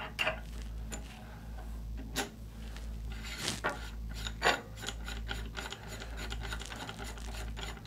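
Metal clicks and rubbing as a suppressor's direct-thread mount is loosened with a wrench and unscrewed from the suppressor held in a vise. The clicks come irregularly, with a few sharper ones around the middle.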